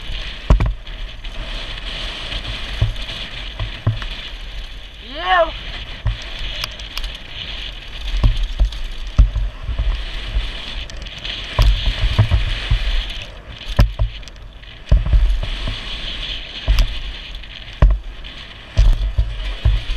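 Mountain bike descending a dirt downhill trail, heard from a helmet-mounted action camera: steady wind and tyre rush with repeated low thumps and rattles from bumps and landings. A short yell about five seconds in.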